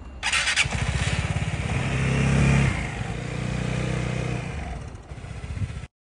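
Vespa scooter's single-cylinder engine being started: a short burst of starter noise, then the engine catches and runs. It rises briefly about two seconds in and then settles to a steady idle.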